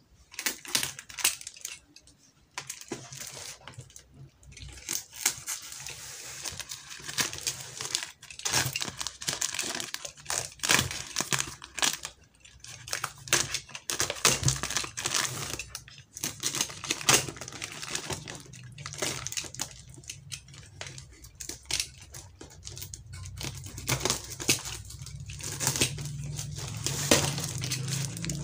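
Utility knife cutting through packing tape and plastic wrap on a cardboard box, with the plastic crinkling and tearing. The sound comes as irregular crackles and sharp clicks, with short pauses between cuts.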